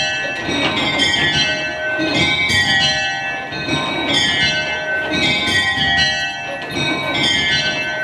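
Change ringing on six of the Millcroft Campanile's mini-ring of very light tower bells (tenor 15 lb 6 oz), swung full circle by rope. The bells strike one after another in an even, rapid rhythm of high-pitched notes that overlap and ring on, in a constantly changing order.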